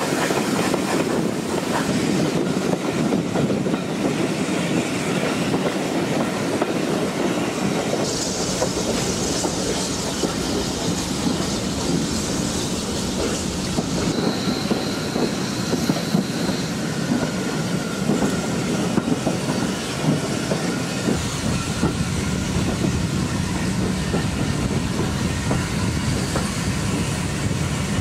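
Steam-hauled heritage railway coaches running along the line, heard from on board, with a steady rumble and the clickety-clack of the wheels over the rail joints. A brief high squeal sounds about halfway through.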